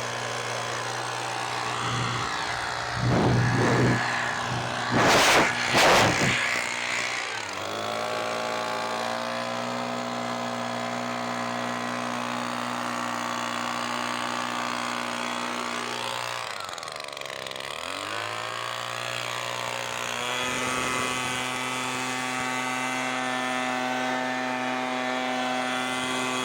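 Echo PB-255LN handheld leaf blower's 25.4 cc two-stroke engine running. It is revved in a few short, loud surges about three to six seconds in, then runs steadily. Around two-thirds of the way through the pitch dips briefly and comes back, and it settles to a slightly higher steady speed.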